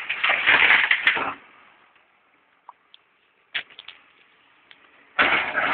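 Excavator bucket tipping a load of broken shale stone into a steel dump trailer: a loud rattling crash of stone for about a second and a half. Then near quiet with a few clicks, and about five seconds in a second loud crunching burst of loose stone as the bucket works the shale.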